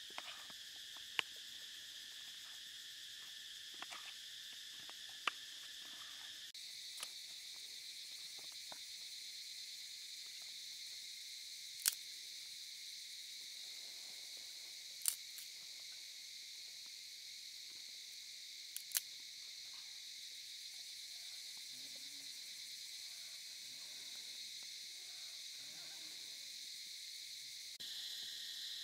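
Steady high-pitched drone of insects, with about half a dozen sharp clicks and knocks scattered through it.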